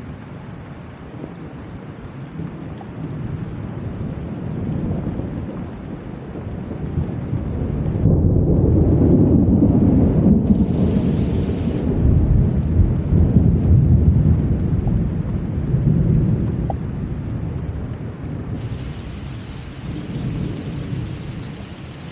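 Summer rain falling steadily, with a long low roll of thunder that swells in the middle and then rumbles away.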